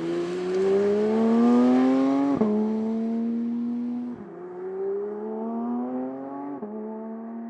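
Porsche 911 GT3 Touring's naturally aspirated flat-six engine accelerating hard through the gears. Its pitch climbs, drops sharply at an upshift about two and a half seconds in, climbs again and drops at a second upshift near the end.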